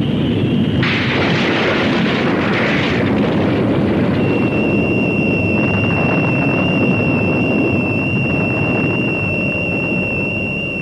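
Cartoon sound effect of a volcano erupting: a loud, continuous rumble, with a hissing burst about a second in. A steady high electronic tone joins about four seconds in.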